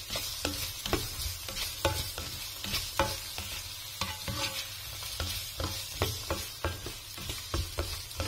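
Diced carrots, green peas and onion sizzling in hot oil in a frying pan, stirred with a spatula that knocks and scrapes against the pan about twice a second. The vegetables are being sautéed to par-cook them before the rice goes in.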